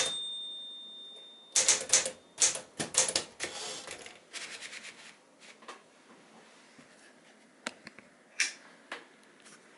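1965 Smith-Corona Sterling manual portable typewriter being typed on. The keys clack sharply while a bell rings out and fades over the first second or so, then comes a quick run of keystrokes that thins into a fading patter, and a few slower, scattered strikes near the end.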